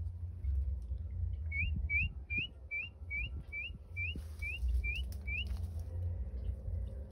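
A bird calling: a series of about ten short, clear whistled notes, each sliding upward, at roughly two and a half notes a second, over a steady low rumble.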